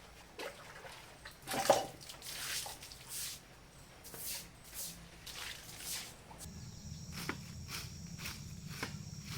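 A series of short rustling swishes of grass or brush, about one every half second to second. About two thirds of the way in a steady low hum starts, with a faint high tone and a few sharp ticks.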